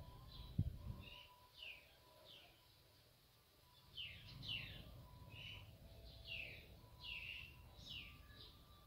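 Birds chirping faintly: short falling chirps, a few at first, then a quicker run from about four seconds in. A soft low knock comes about half a second in.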